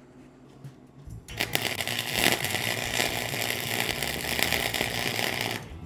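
Wire-feed welder arc on steel: a steady, dense crackle that starts a little over a second in, runs for about four and a half seconds and cuts off sharply near the end.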